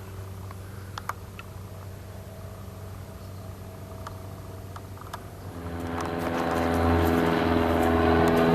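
A low engine hum, then about five and a half seconds in a louder engine drone with several steady tones swells up and holds.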